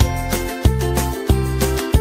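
Upbeat instrumental background music with a steady beat.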